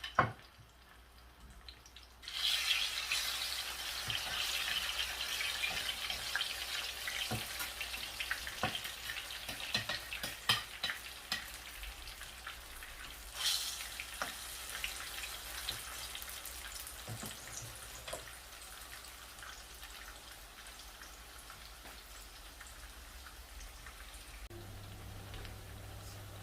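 Ripe plantain slices frying in hot oil: a sizzle that starts suddenly about two seconds in, with scattered pops and crackles. It flares up again about halfway through, then slowly quietens.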